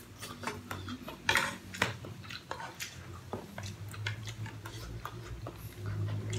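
Close-up eating sounds: chopsticks and a fork clicking and scraping against a pot of pasta, with slurping of noodles in between.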